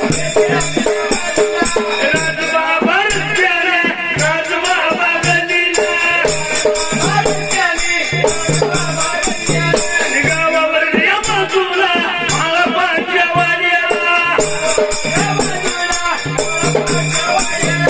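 Dhangari ovi folk music: a wavering melodic line over a steady beat of a low drum and quick, jingling metallic percussion strikes.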